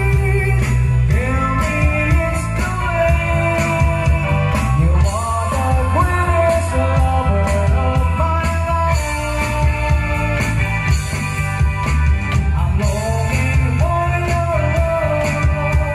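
Live band playing a rock song: a male singer over electric guitar, keyboard and bass, with a steady beat.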